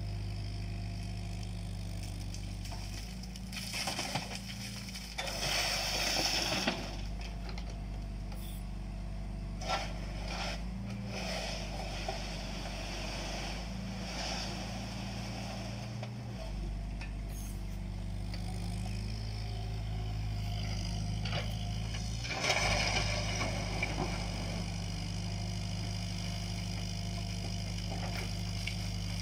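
Mini excavator digging and loading: a diesel engine runs steadily throughout, its note shifting slightly as the hydraulics take load. Over it come noisy bursts of the bucket scraping and dumping soil and stones, about four to seven seconds in, briefly near ten seconds, and again around 22 seconds in.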